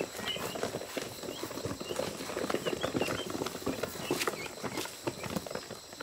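Ducklings peeping faintly in short high notes amid a rapid, irregular pattering and tapping.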